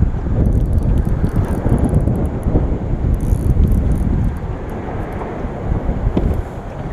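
Wind buffeting the microphone: a loud, uneven low rumble that eases about four seconds in.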